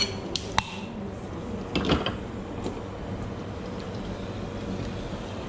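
Several sharp clicks and knocks of coffee equipment being handled behind a café counter, bunched in the first two seconds, then a steady low hum.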